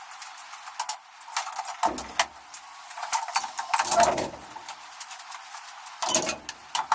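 Scattered clicks, knocks and rattles of things being handled, bunched about two seconds in, around three to four seconds, and again near the end.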